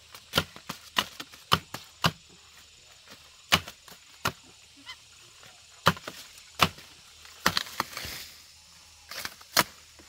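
Sugarcane stalks being chopped with a blade: over a dozen sharp, short chops at irregular intervals.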